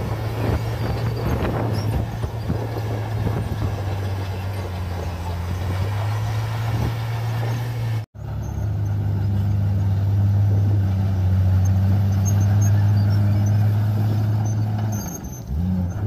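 Komatsu crawler bulldozer's diesel engine running steadily under load while pushing rock and soil, with scattered knocks and crunching from the rock and tracks in the first half. After a brief dropout about halfway, the engine runs louder and steady, then eases off shortly before the end.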